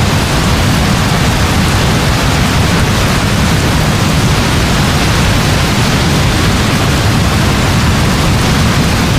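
Heavy rain falling in a steady, dense hiss, with a deep low rumble running underneath and no separate thunderclaps.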